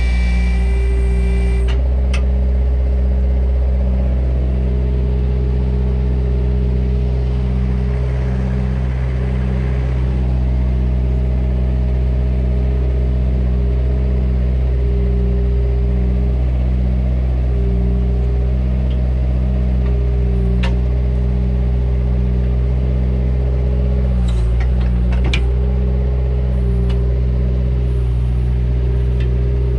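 Bobcat 331 compact excavator's diesel engine running steadily, with an even, regular pulsing in its hum and a few short clanks in the second half.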